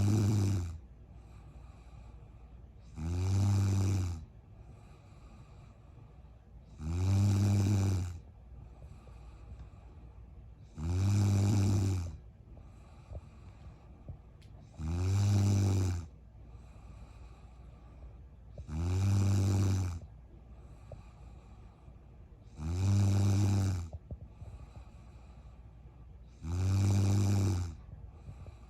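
A sleeping woman snoring in a steady rhythm: one snore about every four seconds, eight in all, each lasting about a second, with quiet between them.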